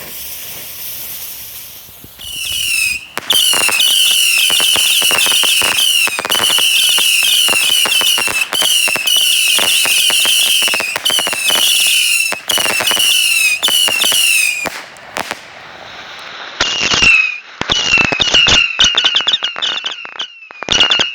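Four 25-shot Saturn missile batteries firing together: a hiss, then a rapid, continuous volley of whistling missiles, each whistle falling in pitch, mixed with sharp cracking bangs. A brief lull comes about 15 seconds in before another burst of whistles and bangs.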